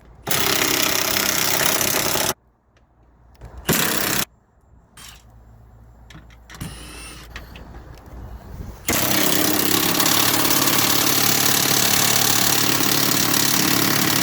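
A power tool driving a 10 mm socket runs in three bursts, about two seconds, then a short one, then a longer one of about five seconds, backing out the bolts that hold a window regulator rail inside a car door.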